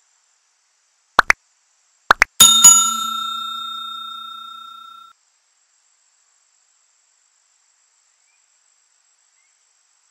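Two pairs of quick rising pops, then a single bright bell ding that rings and fades away over about two and a half seconds.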